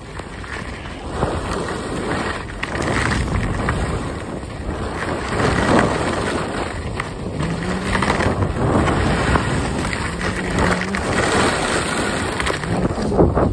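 Skis sliding and carving over snow, a rough hiss that swells and fades every second or two with the turns, with wind buffeting the phone's microphone.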